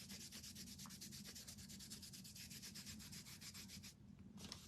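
Faint, quick back-and-forth rubbing on a small flat wooden cutout, about eight strokes a second, pausing briefly near the end before starting again.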